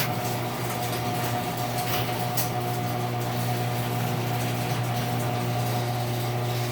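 LiftMaster 3265M chain-drive garage door opener running steadily as it closes the door: the motor gives a steady hum, and the door's metal rollers make a noisy rattle in the track.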